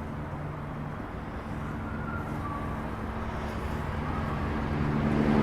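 A steady machine hum with a fixed low pitch, slowly growing louder, over street background noise.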